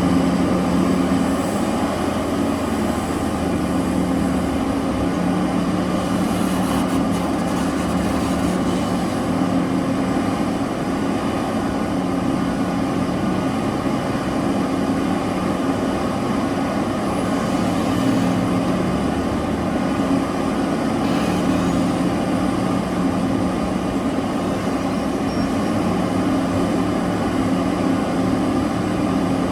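Large diesel engines of heavy mining machinery running steadily under load, a continuous deep drone with a steady hum.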